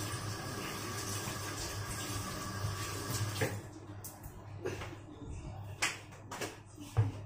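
Kitchen tap water running steadily, shut off about three and a half seconds in, followed by several sharp clinks and knocks of things being handled at the counter, the loudest near the end.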